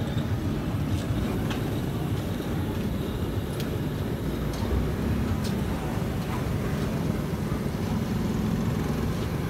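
LPG gas burner under a domed chapati griddle, burning with a steady low roar, with a few faint clicks on top.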